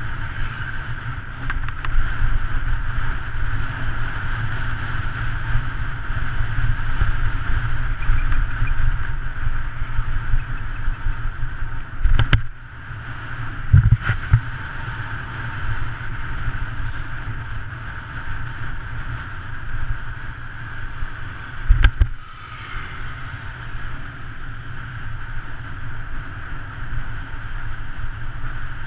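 Wind rushing over the microphone and a steady low rumble of tyres on asphalt as a road bicycle coasts fast downhill. A few sharp knocks break in about 12, 14 and 22 seconds in.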